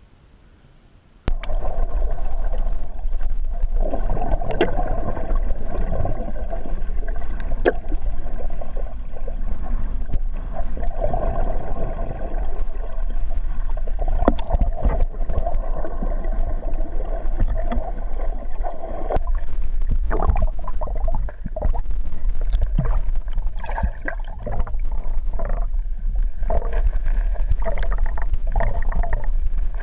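Muffled underwater sound recorded by a GoPro submerged in a lake: a steady low rumble of moving water and handling with gurgles and scattered clicks, cutting in suddenly about a second in.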